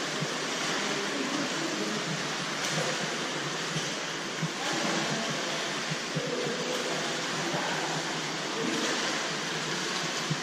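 Steady splashing and churning water in a swimming pool as a swimmer kicks breaststroke along the lane.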